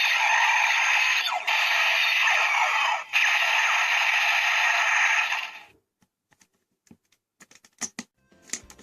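Electronic music and sound effects from a small toy speaker with no bass, as in a DX Break Gunner with a Shift Car loaded. The sound cuts off about six seconds in, followed by a few faint clicks.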